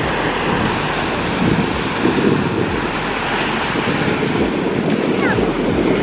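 Small surf breaking and washing up on a sandy shore, a steady rushing hiss, with wind buffeting the microphone.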